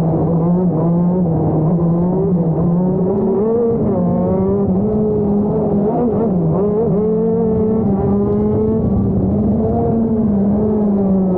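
A TM Racing KZ-R1 125 cc two-stroke shifter-kart engine running hard, heard from on board the kart. It holds a steady high note with small dips and rises as the throttle is worked.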